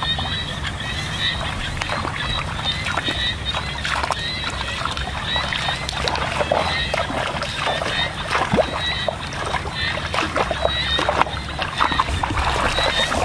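Muddy water sloshing and splashing as people wade and grope through a shallow pond catching fish by hand, with irregular small splashes throughout.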